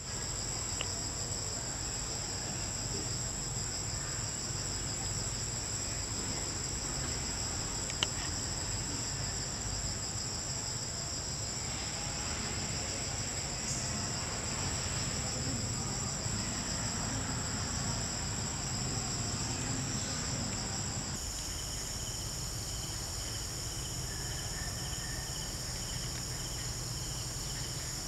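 Steady, high-pitched chorus of forest insects trilling without a break. About two-thirds of the way through, the chorus changes to a different mix of insect songs. One brief click about eight seconds in.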